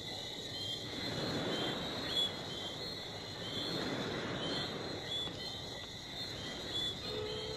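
Outdoor soundtrack ambience: a steady high insect drone with short chirps repeating every second or so, over a low rushing noise that swells and fades. A low steady tone comes in near the end.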